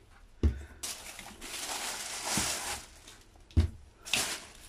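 Thin plastic carrier bag rustling and crinkling as a hand rummages through groceries inside it, with a dull thump about half a second in and another near three and a half seconds.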